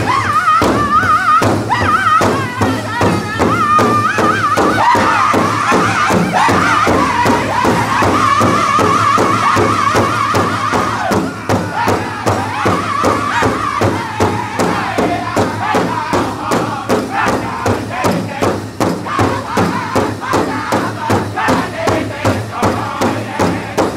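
Powwow drum group: a large drum struck in unison with drumsticks, a steady beat of about two strokes a second, under high-pitched group singing whose melody steps down in pitch through the first half.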